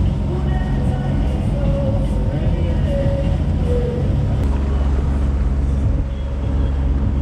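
Wind buffeting the microphone on a catamaran yacht under way, a steady low rumble with water rushing past the hull.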